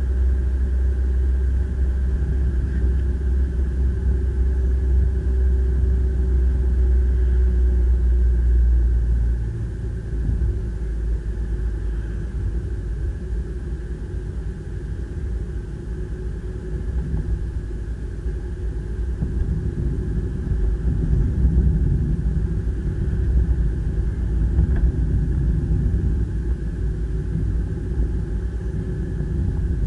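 Car engine and tyre noise heard from inside the cabin while driving, a steady low rumble that eases about ten seconds in.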